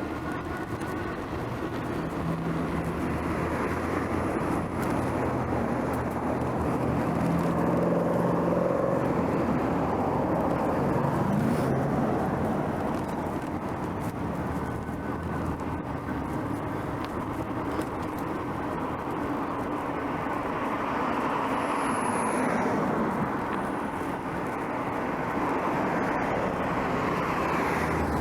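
Road traffic: a steady hum of cars on the road, swelling several times as vehicles pass close by.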